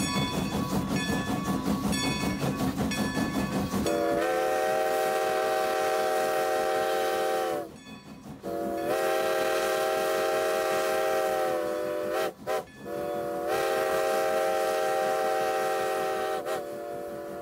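A train's chime whistle sounding two long blasts, a short one and a long one, the standard grade-crossing signal, after a few seconds of the train running with a rhythmic clatter.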